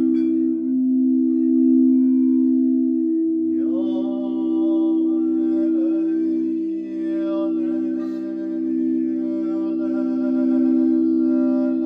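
Meditative sound-healing music: several layered tones held as a continuous drone. About four seconds in, a new tone glides up in pitch and settles into the drone.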